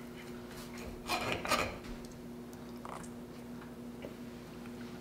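Forks clicking and scraping on plates as cinnamon rolls are cut, with a few short clatters about a second in and one more near three seconds, over a faint steady hum.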